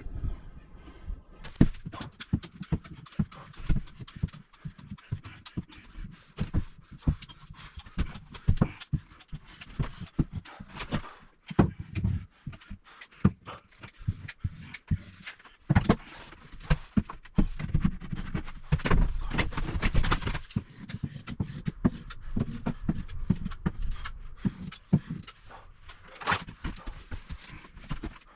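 Irregular knocking, tapping and clattering of hand tools and materials being worked, with many sharp impacts and no steady rhythm.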